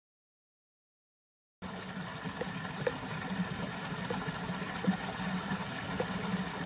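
Silence for about a second and a half, then steady rushing of flowing water starts abruptly, with a few faint clicks.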